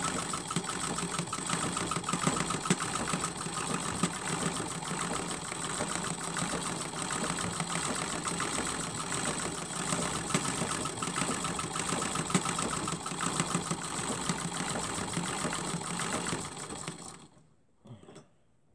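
Sewing machine running steadily while stitching through a quilt, with a rapid even run of needle strokes. It stops about 17 seconds in, and a short thump follows about a second later.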